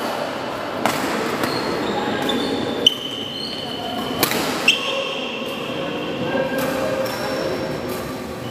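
Badminton rally: several sharp racket hits on the shuttlecock, the loudest about three and four and a half seconds in, with short high squeaks of shoes on the court floor and voices echoing in the hall.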